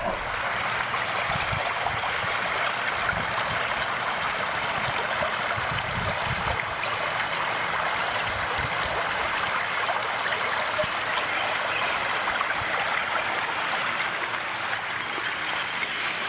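A small stream babbling steadily over stones, a constant rushing gurgle of running water. A thin, high, steady tone joins faintly near the end.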